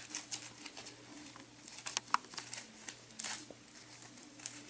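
Scattered rustling and light clicks of camping gear being handled and dug out of a backpack, over a faint steady hum.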